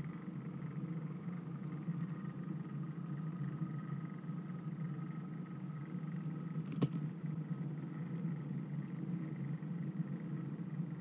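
An OO-gauge model goods train, shunted by a model class 08 diesel shunter, running past on the track with a steady low hum and a faint high whine. One sharp click comes about seven seconds in.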